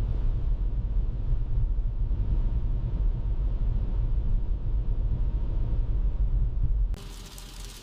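Car driving at speed, a steady low rumble of road and engine noise. Near the end it cuts abruptly to a quieter hiss.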